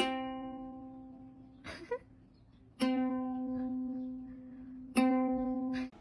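A cat's paw strumming the strings of a ukulele three times; each strum rings out and slowly fades, and the last is cut short.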